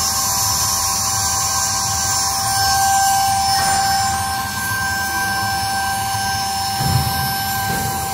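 High-speed spindle of a CNC micro-hole drilling machine running with a steady whine while drilling tiny holes in a copper tube, over a steady hiss.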